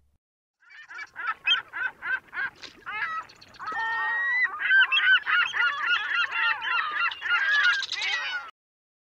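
A flock of birds calling: short calls, first one after another about four a second, then many overlapping calls from about three seconds in, stopping suddenly near the end.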